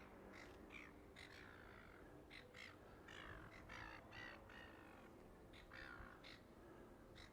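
Faint bird calls outdoors: many short calls, one after another, scattered through the few seconds.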